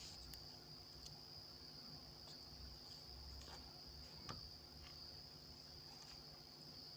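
Near silence with a faint, steady high-pitched trill like crickets in the background, and a few faint clicks.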